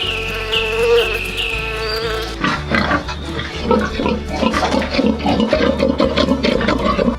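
Pigs grunting in a dense, irregular stream, starting about two and a half seconds in, over background music with a steady beat. Before that the music carries repeated high, falling chirps.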